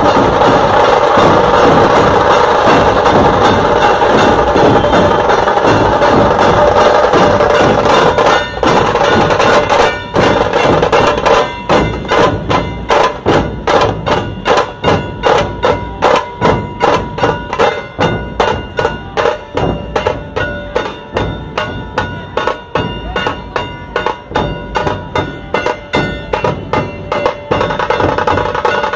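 Massed dhol drums of a street drum troupe playing together. A dense, continuous rolling for the first eight seconds gives way to a slower, even beat of about two strokes a second, which turns dense again near the end.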